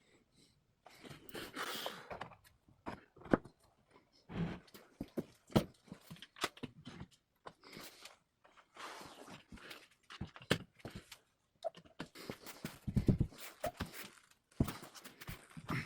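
Irregular knocks, clicks and short scrapes of wooden pieces and tools being handled on a workbench, with a few brief pauses.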